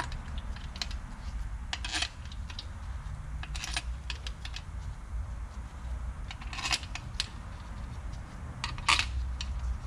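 Steel bolts clinking against each other and into their holes in the intake plenum as they are handled and dropped in by hand: several sharp metallic clinks at irregular intervals over a steady low hum.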